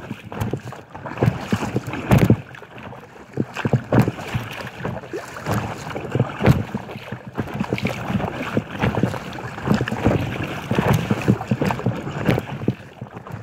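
Choppy waves slapping irregularly against an inflatable kayak's hull, with wind buffeting the microphone.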